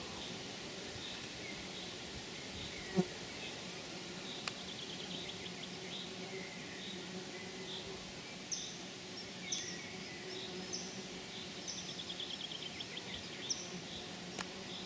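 Birdsong in the open: one bird repeats a short chirp about twice a second, while others add fast trills and a series of short falling whistles starting a bit past halfway. Under it runs a steady low hum, like a buzzing insect.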